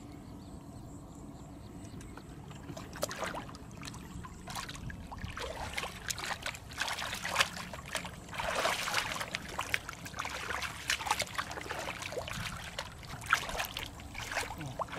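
Hands digging and groping in wet, watery mud for catfish: a run of irregular wet squelches, slaps and splashes that begins about three seconds in and is busiest near the middle.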